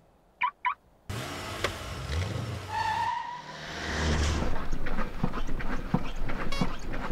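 Two short chirps, then a Mercedes-Benz B-Class car rolling slowly close past, its engine running low and its tyres crackling over grit on the asphalt.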